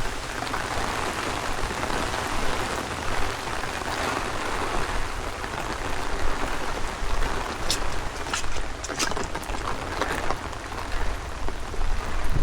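Steady rain falling, with a low rumble of wind buffeting the microphone and a few sharp drip ticks a little past halfway.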